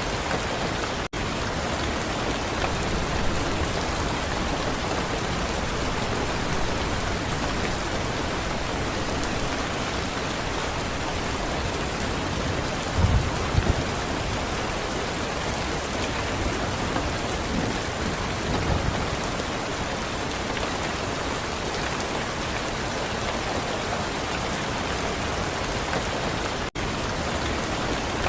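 Steady, even rain falling on a surface, with a couple of brief low rumbles near the middle. The sound drops out for an instant twice, once near the start and once near the end.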